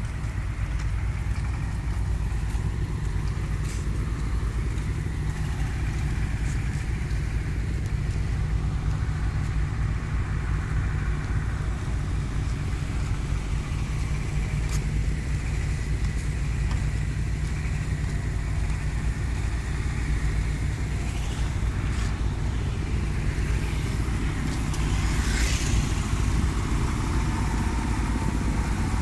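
Steady low rumble of engines idling around a harbour quay, with a few faint clicks and a brief wavering higher sound near the end.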